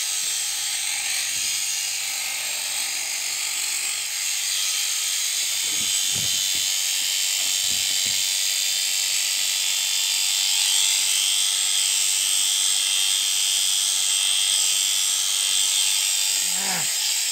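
Electric sheep shears running steadily with a constant motor whine as they cut through a ram lamb's fleece.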